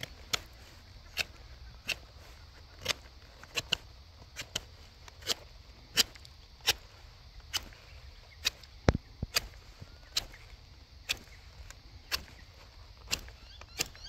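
Short blade of a Nextorch MT20 multi-tool whittling a dry, hard stick to a point: a run of short, sharp shaving strokes, about one or two a second.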